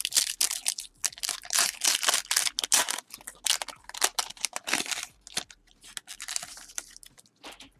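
A trading card pack's wrapper being torn open and crinkled, a dense crackling for about five seconds that thins out and fades near the end.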